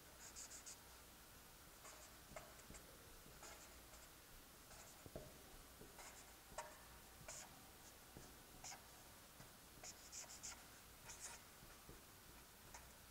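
Felt-tip marker drawing on paper: faint, short scratchy strokes coming in irregular clusters.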